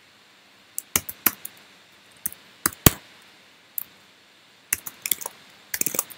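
Typing on a computer keyboard: sharp keystroke clicks in small irregular bursts of a few keys at a time, with pauses of about a second between bursts.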